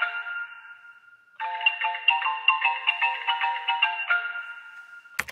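Video door intercom's indoor monitor playing its call ringtone: a quick chime-like melody ending on a held note that fades, heard twice with a short pause between. It is cut off by a sharp click near the end.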